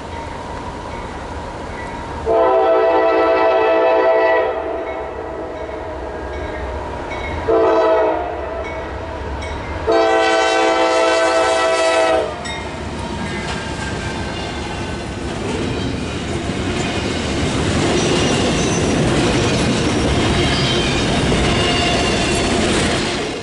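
Freight locomotive air horn sounding three blasts, long, short and long, each a chord of several notes. Then the noise of the passing train grows steadily louder until it cuts off abruptly at the end.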